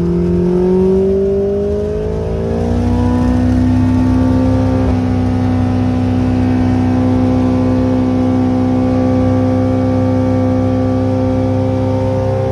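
Light aircraft engine and propeller of a Just Aircraft Highlander running up to high power. The pitch climbs over the first few seconds, steps up a little about five seconds in, then holds steady.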